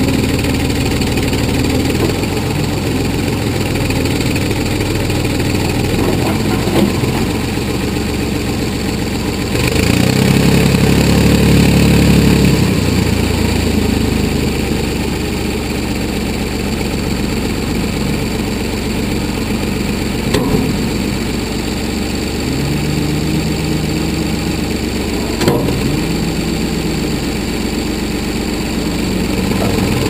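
1981 Ford 555 backhoe's engine running steadily as it digs, getting louder and deeper for about three seconds roughly ten seconds in. Two brief knocks come later, about five seconds apart.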